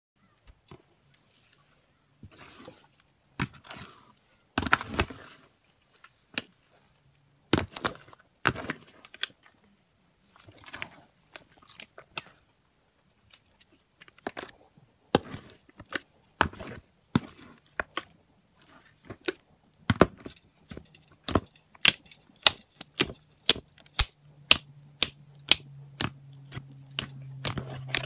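Hands squishing, stretching and pressing green slime mixed with beads, giving sharp sticky pops and clicks, scattered at first and coming about two a second near the end. A low steady hum joins in the last few seconds.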